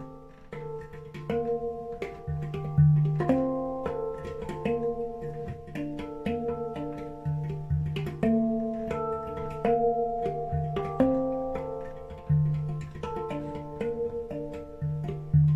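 Handpan played with the fingers in a free improvisation: struck steel notes ring on and overlap, over a deep low note struck again every few seconds, with light taps in between.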